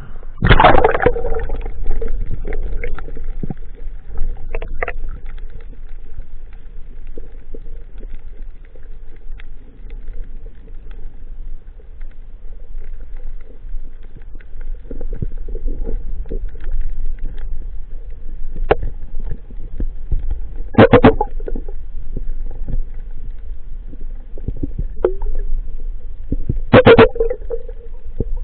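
Muffled underwater sound on a freediver's action camera: a low steady rumble of moving water. A loud burst of splashing and bubbles comes as the camera goes under, about half a second in, and a few more short bursts come later, the last two about three-quarters through and near the end.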